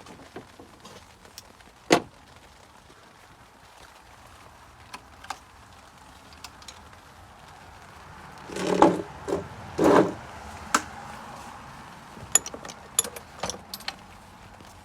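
Workshop handling noises: scattered clicks and knocks of tools and parts. Two louder clattering, scraping bursts come about eight and a half and ten seconds in.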